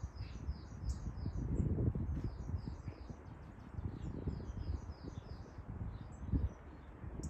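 A small songbird in the trees singing phrases of short, high, down-slurred notes, about four or five a second, with a brief pause near the middle. Low rumbles on the microphone come and go underneath and are at times louder than the song.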